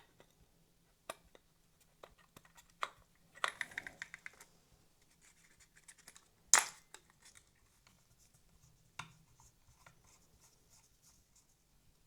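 Hands handling small parts of a model steam locomotive: scattered light clicks and taps, a short scratchy rustle about three and a half seconds in, and a sharper click about six and a half seconds in.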